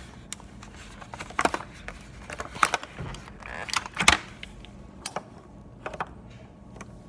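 Irregular plastic clicks, taps and rustles of scented markers and their caps being handled, about a dozen sharp clicks with the loudest cluster about four seconds in.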